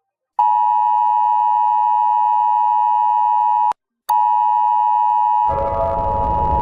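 Electronic emergency-alert tone: a steady, high beep held about three seconds, a short break, then the same tone again. About five seconds in, several lower steady tones join it, sounding together like a chord.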